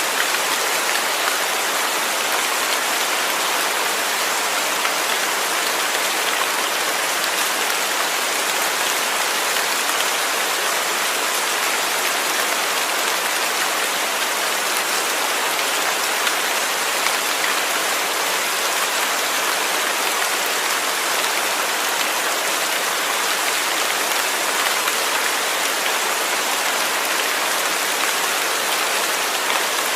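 Steady rain falling, an even hiss of many drops with no thunder or distinct events.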